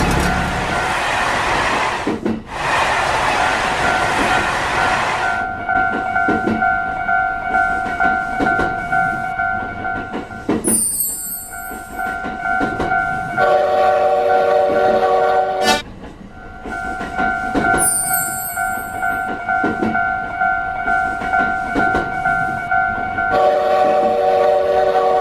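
Japanese level-crossing warning bell ringing its repeated "kan-kan" alarm, with a train rushing past for the first five seconds. A multi-tone train horn sounds twice, once about halfway through and again near the end.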